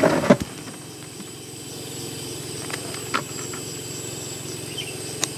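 An engine running steadily, with a few short clicks and knocks over it.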